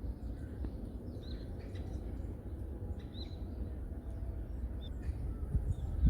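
Small songbirds giving a few short, high chirps over a steady low rumble of outdoor background noise in a forest.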